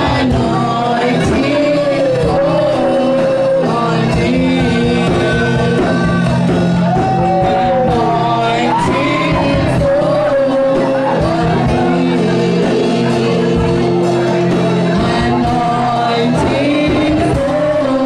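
Loud live worship music: held keyboard or bass tones under voices singing and shouting, with gliding, wavering pitches.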